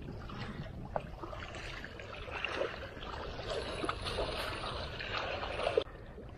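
Small waves splashing and lapping against shoreline rocks, with wind rumbling on the microphone. The splashing swells about a second and a half in and cuts off suddenly near the end.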